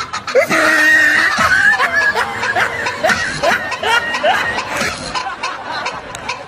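A crowd of men laughing and whooping, many voices at once with short rising shouts.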